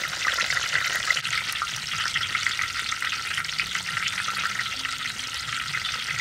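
Hot oil sizzling and crackling steadily as bananas deep-fry in a wok, a dense hiss full of fine pops.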